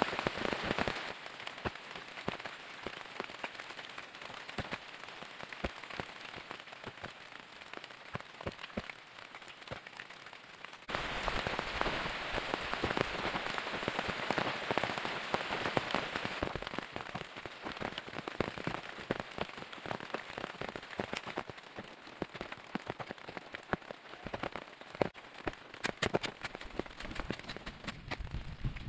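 Steady rain falling through forest, with many close drops heard as separate sharp ticks. It becomes louder and fuller about eleven seconds in.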